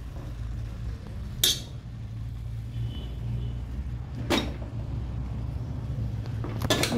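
Metal spoon and fork clinking against a cooking pot and a ceramic plate while serving pieces out: three sharp clinks, about a second and a half in, just past four seconds, and a double one near the end, over a steady low hum.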